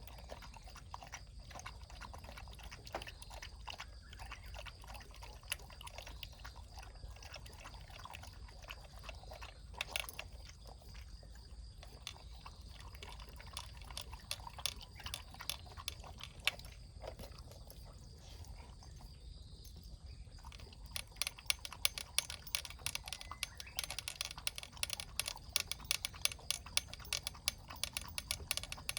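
A small pet eating its breakfast: crunching and chewing food in many small sharp clicks, scattered at first and coming quickly and densely from about three quarters of the way in.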